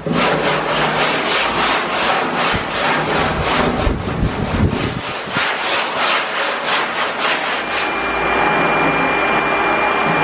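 Hand sanding the epoxy-coated plywood inside a boat hull: a sanding block rubbed back and forth in quick, even strokes, roughly three a second. About eight seconds in, a vacuum cleaner starts and runs steadily with a thin high whine.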